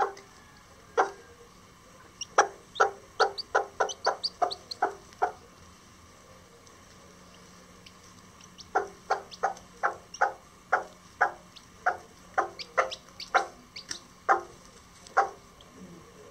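Lavender Old English Game bantam hen clucking in two runs of short, quick clucks, several a second, one from about two seconds in and a longer one from about nine seconds in. It is the rapid clucking a broody hen uses to call her chicks to food.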